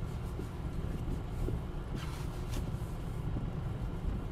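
Steady low rumble of a car's engine and road noise heard inside the cabin, with two brief soft hisses a little past the middle.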